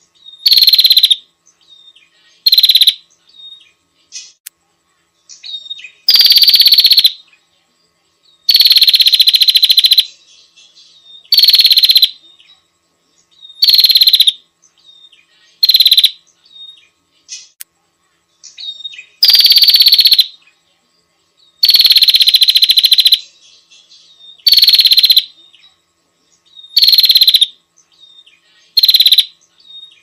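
Prenjak lumut (tailorbird) lure call: loud, high-pitched calls repeated every second or two, some short and some drawn out for more than a second, with fainter chips in between.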